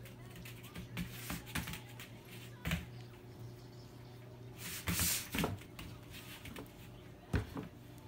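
Scattered light taps and scuffs of a puppy's paws moving on foam floor mats, with a short rustling hiss about five seconds in, over a faint steady hum.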